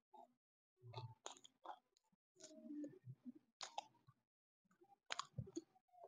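Close-miked chewing of white edible chalk (clay): crisp crunches and wet mouth clicks come in short bursts about every second, with brief quiet gaps between bites.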